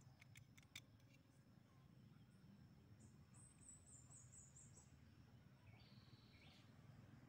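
Near silence with a few faint clicks in the first second, then a faint quick run of high bird chirps in the middle and a shorter, lower call after it.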